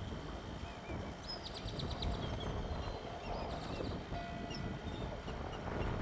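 Birds chirping, with a couple of quick trills of rapidly repeated high notes, over a steady low rumble.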